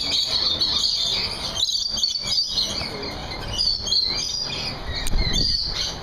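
A flock of rainbow lorikeets chattering and screeching, with many shrill chirps overlapping without a break. A brief low thump comes about five seconds in.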